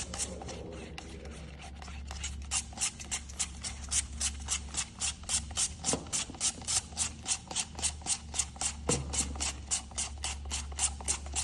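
Rapid, even scraping strokes, about four a second, of a stirring stick in a small cup as polyurethane foam resin is hand-mixed with water to start its foaming reaction.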